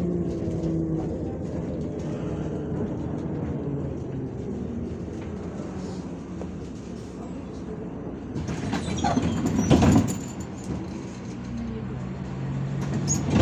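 Interior of a MAZ-105 city bus underway: the engine note falls as the bus slows, then runs on as a steady low drone. From about eight seconds in, louder noisy bursts rise over it, loudest about ten seconds in and again near the end.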